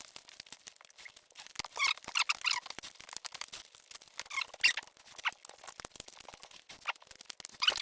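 Close-up eating sounds: many short wet mouth clicks and lip smacks, with a few brief squeaky sucking noises, as chicken and rice are eaten by hand.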